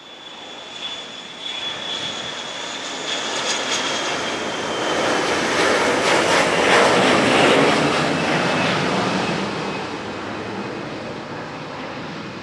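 Boeing 727-200F freighter's three Pratt & Whitney JT8D turbofans on final approach, passing close by. A high whine that slowly drops in pitch sits over the engine noise, which builds to a peak about halfway through and then fades away.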